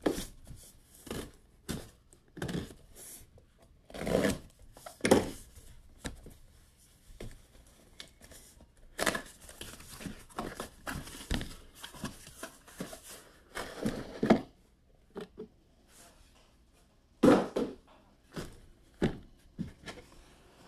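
Hockey card boxes and their packaging being handled: irregular crinkling, rustling and tearing, with a few louder knocks.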